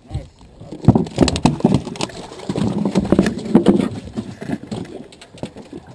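A rapid, irregular run of knocks and thuds: freshly landed fish flapping on the fibreglass boat deck, with a brief muffled vocal sound about halfway.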